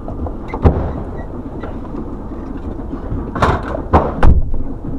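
A fire engine's engine running, heard from inside its cab as a steady low rumble, broken by sharp knocks and bangs: one about half a second in, then a loud cluster of three between about three and a half and four and a quarter seconds in, the last the loudest.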